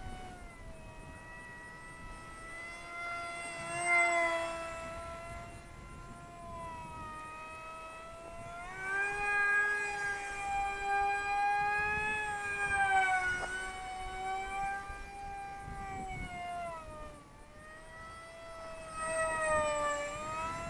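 Zeta Z84 flying wing's brushless electric motor and propeller whining in flight on 4S power. The pitch rises and falls with throttle and the wing's passes, and it is loudest about nine to thirteen seconds in and again near the end.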